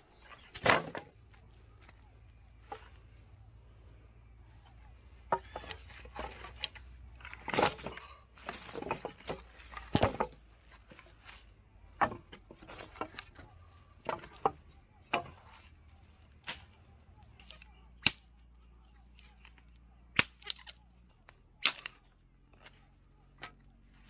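A series of about twenty sharp knocks and snaps at irregular intervals, roughly one to two seconds apart, with softer rustling in between.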